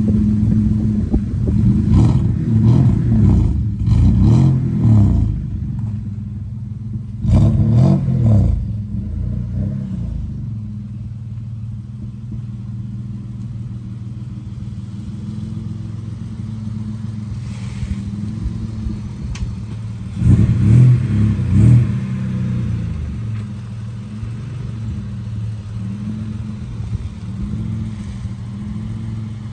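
Dodge Stealth R/T's naturally aspirated 3.0 L V6 idling through an aftermarket downpipe, high-flow cat and Maximal Single Shot muffler with its silencer insert removed, giving a deep tone. It is blipped: a run of quick revs in the first few seconds, another about seven seconds in and a pair about twenty seconds in, settling back to idle between them.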